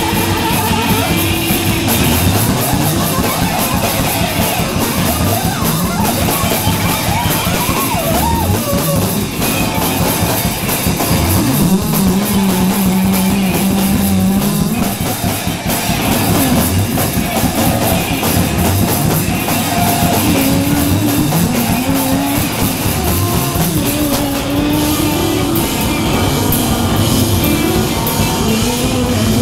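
Live rock band playing loud, with guitars and a drum kit and a singer's voice through the PA. Pitches slide up and down throughout, and one note is held for a few seconds around the middle.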